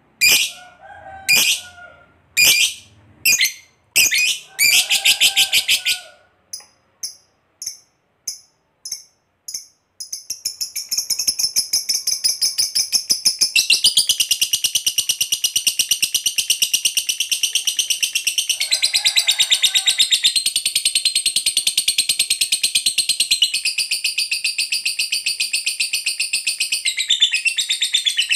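Lovebird calling: a series of sharp, high chirps about once a second, then fainter quicker chirps. About ten seconds in it breaks into a long unbroken rapid chatter, the 'ngekek panjang' prized by lovebird keepers.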